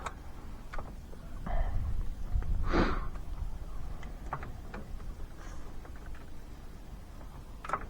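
Floor jack being pumped to lift a Polaris Ranger side-by-side by its frame: scattered faint clicks and knocks at irregular intervals over a low rumble.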